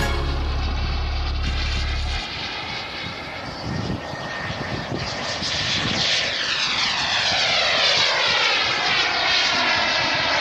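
Jet aircraft flying a low pass: its engine noise swells and then sweeps down in pitch as it goes by, from about halfway through.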